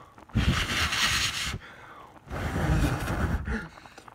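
A person blowing hard onto the foam of a pot of boiling macaroni to knock it down and keep it from boiling over: two long puffs of breath of about a second each, with a third beginning at the very end.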